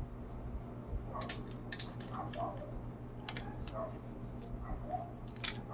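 Scattered light clicks and taps, a few close together, over a steady low hum.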